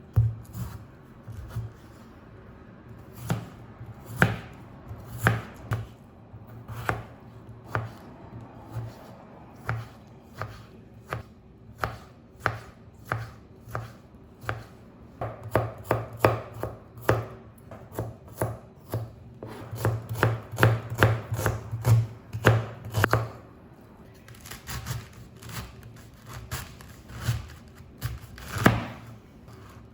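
A kitchen knife chopping food on a cutting board. The strokes are irregular, with quicker runs of chopping in places.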